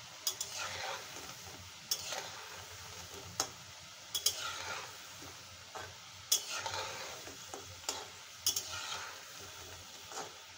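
Noodle pakoras deep-frying in hot oil in a metal karahi, sizzling steadily as they near the end of frying. A metal spatula stirs and turns them, knocking and scraping against the pan with sharp clicks every second or two.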